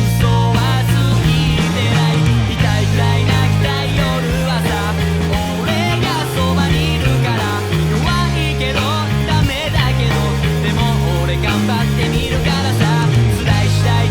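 Electric bass played along to a rock band's recording, with a prominent bass line and several sliding notes over guitars.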